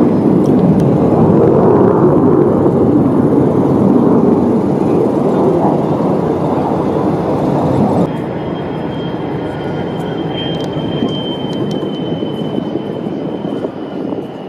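Loud, steady rumbling noise with no distinct rhythm or pitch. About eight seconds in it drops a little, and a faint, steady high whine comes in.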